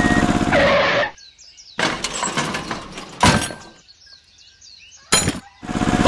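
Small engine running with a rapid even beat, cutting off about a second in. Birds chirp through a quieter stretch broken by a sharp knock about three seconds in and a sharp clatter just after five seconds. The engine sound starts again near the end.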